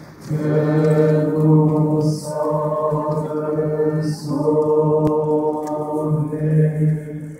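Unaccompanied religious chant sung in long held notes, in phrases with short breaks between them.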